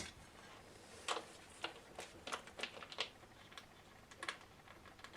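Faint, irregular clicks and light taps of bolts and metal rack parts being handled.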